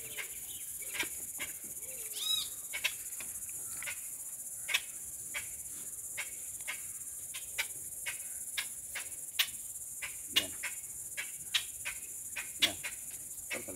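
Insects shrilling steadily at a high pitch, with many short sharp clicks scattered throughout and a brief call about two seconds in.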